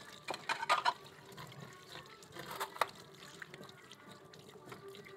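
Dishes being washed by hand at a kitchen sink: plates and utensils clinking against each other and the rack, with water sounds in the sink. A cluster of clinks comes in the first second, and another sharp one near three seconds in.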